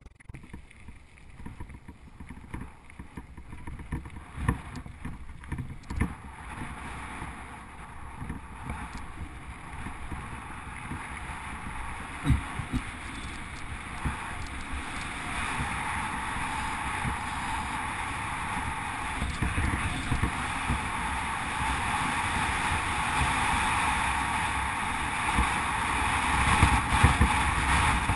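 Wind rushing over a bike-mounted GoPro HD Hero 2 camera, mixed with mountain-bike tyres rolling on a gravel track, growing steadily louder as the ride goes on. Scattered sharp knocks from the bike jolting over bumps.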